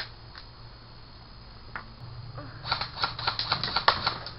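Airsoft fire: a rapid run of sharp clicks starting about two and a half seconds in and lasting under two seconds, after a few scattered clicks.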